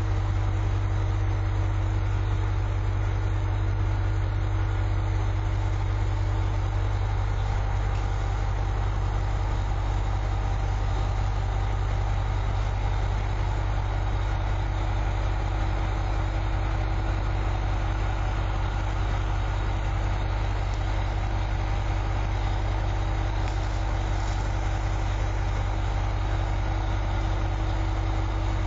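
Kanto Railway Jōsō Line diesel railcar idling: a steady, unchanging low engine hum with a constant higher tone above it.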